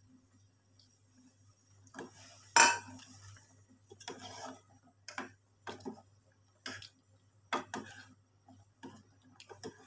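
A stainless steel cooking pot of gravy being handled as food is put into it by hand: irregular clinks and knocks of metal, starting about two seconds in, the loudest shortly after.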